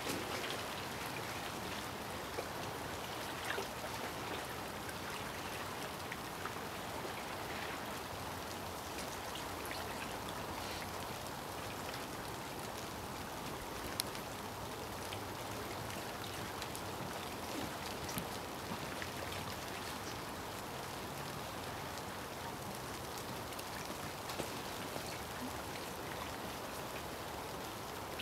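Steady patter of light rain, with the odd sharper drop standing out now and then.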